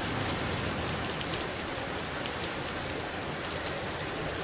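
Steady rain: an even hiss with scattered ticks of drops striking close by.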